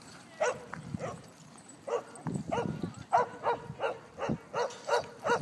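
A dog barking repeatedly during rough play: about nine short barks, sparse at first, then coming quickly, around three a second, through the second half.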